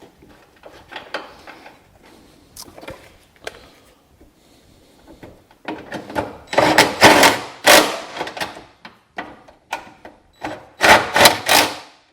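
Small clicks of nuts and a part being handled, then an electric impact wrench running in short bursts in two groups, about six seconds in and again near the end, driving down the two 10 mm nuts that hold a hood ajar switch.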